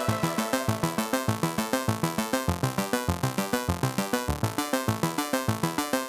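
Background music: a quick, even pulse of repeated notes over a regular bass beat.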